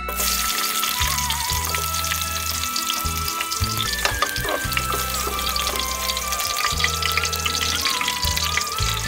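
Chopped green onion frying in hot oil in a stainless steel pot, sizzling and crackling. The sizzle starts abruptly as the pieces hit the oil. Background music with a melody plays underneath.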